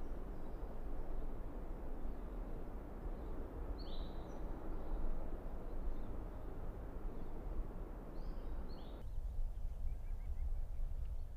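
Outdoor ambience: a steady low rumble and an even hiss, with a short falling bird chirp twice, about four seconds in and again near eight and a half seconds. The hiss drops away near the end, leaving the low rumble.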